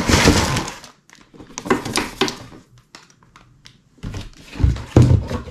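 A cardboard Lego set box being opened and handled, its contents rustling and scraping, with a quiet gap midway and a couple of dull thumps near the end.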